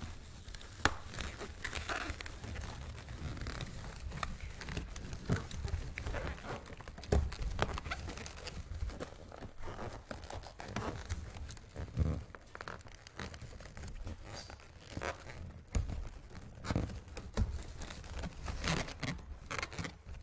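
Latex balloons rubbing and squeaking against each other as they are handled, an 18-inch balloon being fixed onto the top of a balloon column, in an irregular string of short creaks and knocks.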